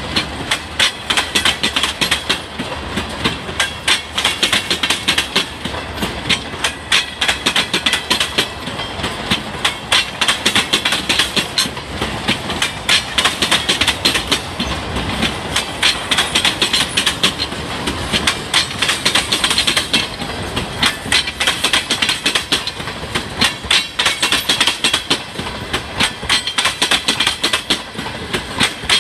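Freight train of tank cars rolling past close by: a constant run of sharp clicks as the wheels pass over the rail joints and crossing, over a steady rolling rumble.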